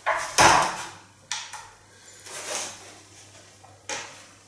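Handling noises as a padded camera bag is set down on a flat digital scale: a thump about half a second in, a sharper knock a second later, a short rustle of fabric, and a click near the end.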